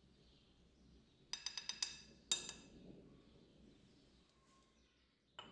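Small wooden spoon tapped against the rim of a ceramic mixing bowl to knock spice powder off it: about five quick ringing taps, then one harder knock. Another short clink comes near the end.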